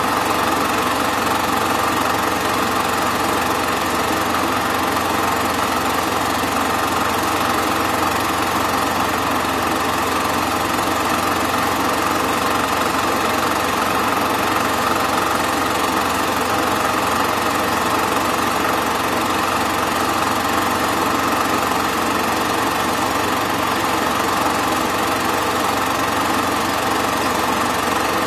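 Super 8 film projector running with a steady mechanical whirr and clatter.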